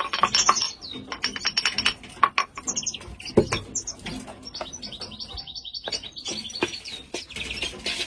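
Caged songbirds chirping and trilling in fast runs of short, high repeated notes, with a few knocks from a container and bowl being handled.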